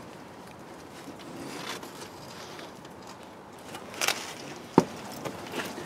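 Rustling and scraping as a wiring loom is pulled by string through a car's chassis rail, with a sharp knock about five seconds in and a few lighter clicks after it.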